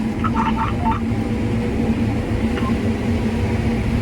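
Combine harvester running at full throttle while harvesting corn: a steady engine drone with a constant hum and low rumble. A quick series of short electronic beeps sounds in the first second.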